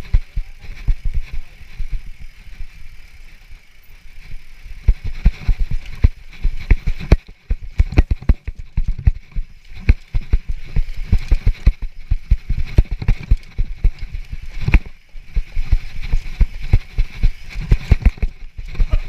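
Mountain bike ridden fast down a rough dirt trail: a dense, irregular run of thumps and knocks as the wheels hit bumps and the bike and camera jolt, over a steady rush of wind and tyre noise. The knocking eases off briefly twice, a couple of seconds in and again past the middle.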